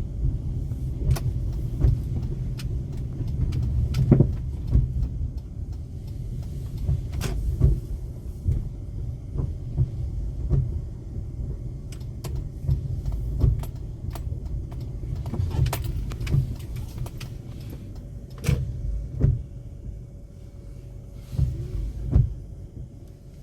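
Car driving in rain: a steady low road and engine rumble with scattered sharp taps and clicks, the rumble easing off gradually through the last several seconds.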